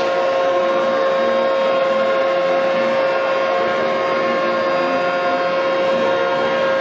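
Launch of a large flat-decked warship down a slipway: one long, steady horn blast over a dense noise of the moving hull.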